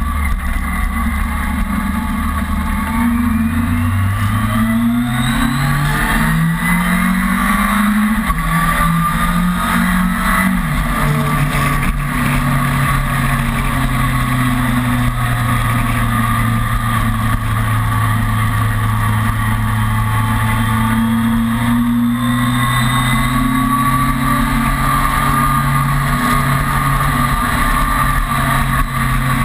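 Kawasaki ZRX's inline-four engine accelerating up through the gears, its note climbing in steps with each shift. About ten seconds in it drops back and settles into a steady highway cruise.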